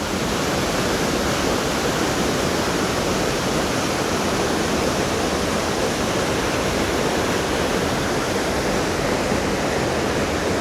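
Waterfall pouring over a rock ledge, heard from right at its top: a steady, loud rush of water.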